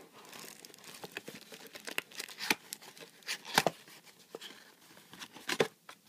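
Cardboard packaging of a Nexus 7 tablet box being pulled and worked loose by hand: scraping and rustling with several sharp knocks, the loudest about three and a half and five and a half seconds in.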